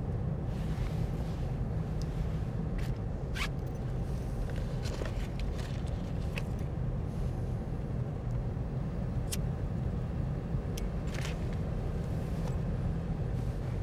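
Steady low rumble of a car driving, heard from inside the cabin: engine and tyre noise. Scattered small clicks and rustles sound over it, among them a lighter being struck as a cigarette is lit about ten seconds in.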